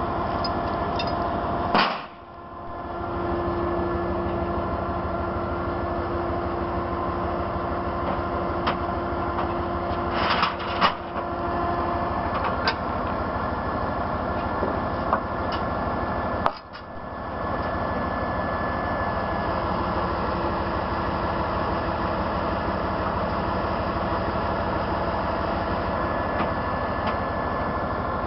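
Tow truck's diesel engine running steadily, with a few sharp clicks and knocks over it. The sound drops away suddenly and briefly twice, about two seconds in and again past the middle.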